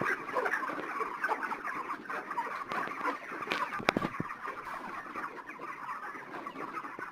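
A shed full of 32-day-old broiler chickens clucking and chattering, a dense steady flock murmur, with a few sharp clicks about halfway through. The flock has suddenly come down with a cold, the respiratory 'sound' the farmer takes for CRD.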